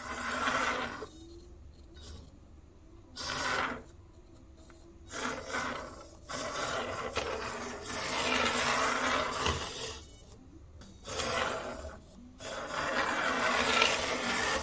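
Turbo Racing 1:76-scale RC drift car being driven in short bursts, its tiny tyres sliding across the surface with a noisy rasp. There are about six runs, with one longer one of several seconds in the middle.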